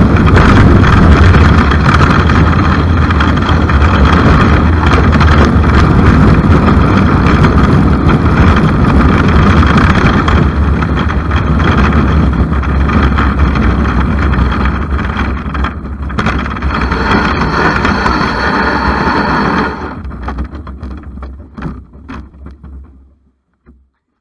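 A bobsleigh's steel runners rumbling and scraping on the ice track at speed, a loud steady roar of noise. About twenty seconds in it drops sharply and dies away over the next few seconds as the sled slows to a stop.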